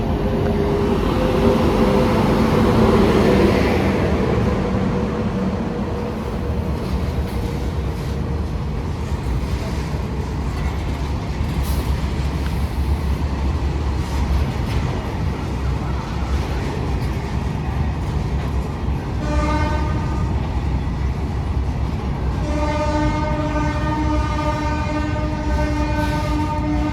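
A train rolling through a railway station with a heavy, steady rumble and wheel noise, then the locomotive horn sounding: a short blast about 19 seconds in and a long, held blast for the last few seconds.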